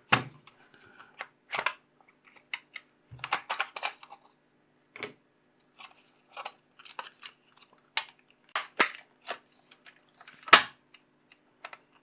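Plastic snap-fit clips of a cordless window vacuum's moulded housing clicking and cracking as the casing halves are prised apart by hand. The sharp clicks are irregular, and one loud snap comes near the end.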